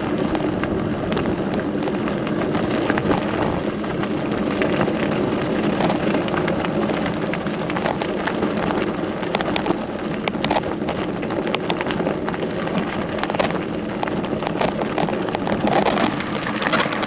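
Bicycle tyres rolling over a gravel track, a steady crunching and crackling of small stones.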